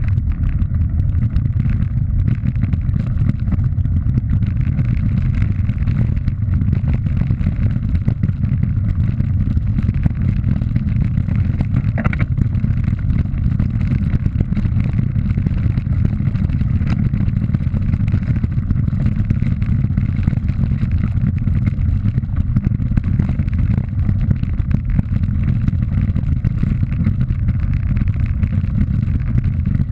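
Riding noise from a camera travelling along a loose gravel track: wind buffeting the microphone and tyres rumbling over stones, making a loud, steady, low rumble. There is one brief click about twelve seconds in.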